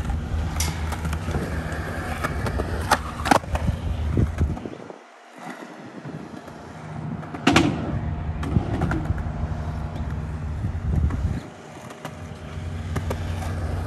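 Skateboard wheels rolling on concrete, a steady low rumble that cuts out briefly about five seconds in and again near twelve seconds. Several sharp clacks of a board against the concrete are mixed in.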